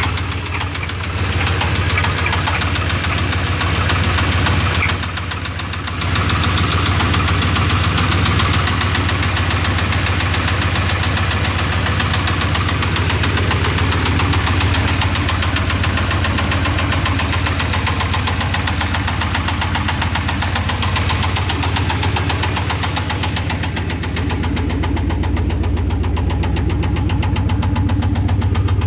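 1988 Chevrolet C1500 pickup's 305 V8 running with a rapid, steady knock, a bad engine knock that sounds horrible before an oil change. The sound drops briefly about five seconds in, then picks up again.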